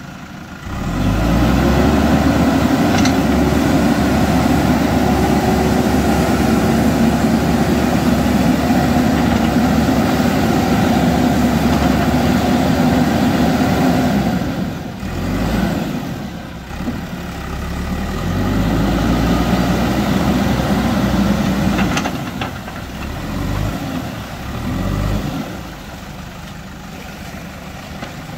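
JCB 3DX backhoe loader's diesel engine running under load as the machine drives through shallow river water. It comes up strongly about a second in, holds steady, drops away briefly about halfway, comes back, then goes uneven and eases off near the end.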